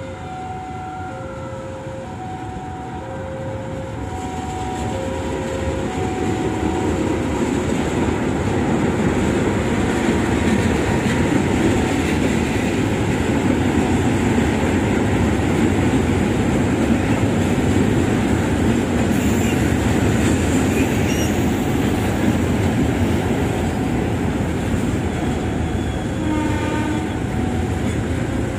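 Level-crossing warning bell ringing in two alternating tones, about two a second, soon drowned by a diesel-hauled train of tank wagons rolling past with steady wheel and rail noise that grows louder. A short train horn sounds near the end.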